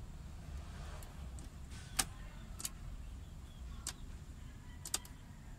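Screwdriver working screws into the plastic centre dash panel around a car stereo: about five sharp clicks, the loudest about two seconds in and a quick pair near the end, over a low steady rumble.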